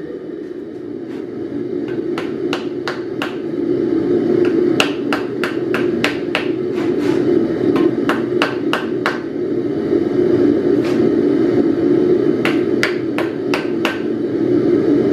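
Wooden mallet striking a red-hot twisted steel hook laid on a wooden stump. The knocks come in runs of about three a second with short pauses between the runs, over a steady low drone.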